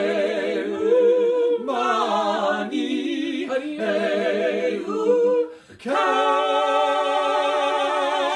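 Three voices, a woman and two men, singing a cappella in close harmony with vibrato. About five and a half seconds in they break briefly, then all three hold one long chord together.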